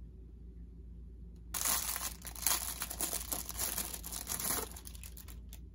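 Plastic packaging bag crinkling for about three seconds, starting about a second and a half in, as a small plastic folding-chair phone stand is pulled out of it, followed by a few light clicks near the end.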